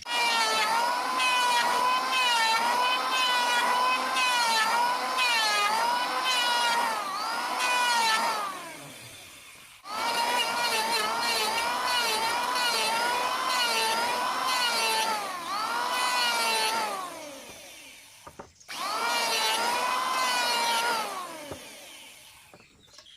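Homemade table saw running, a high whine whose pitch sags and recovers again and again as wood is pushed through the blade. It runs three times, each run starting suddenly and dying away with a falling pitch as the blade spins down.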